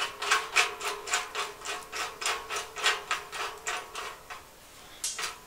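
A screw being turned by hand through a steel leg and bracket into the welded nut of a stainless-steel fire bowl: a run of short metallic scrapes and clicks, about three or four a second, with the thin steel shell ringing faintly. The scrapes fade out about four seconds in, and one more click comes near the end.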